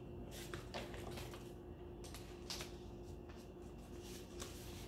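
Faint rustling and soft taps of paper being handled: a cut paper piece pressed onto a paper plate and the plate picked up, a scattering of light clicks over a quiet room.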